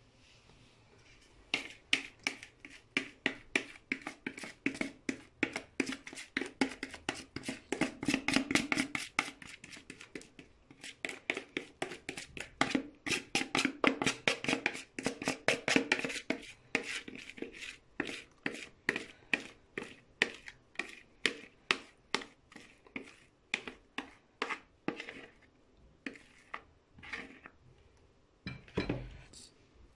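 Spoon scraping and tapping batter out of a mixing bowl into a glass baking dish: quick, even clicks about three a second, coming further apart near the end.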